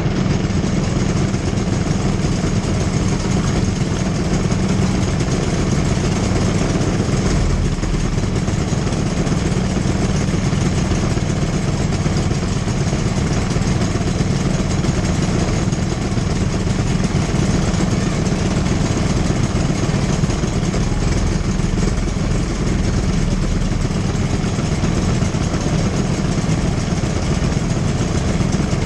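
Briggs & Stratton LO206 four-stroke kart engines idling steadily, with no revving.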